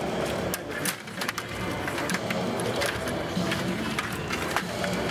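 Table hockey game in play: rapid, irregular clicking and clattering of the control rods, plastic players and puck on the table.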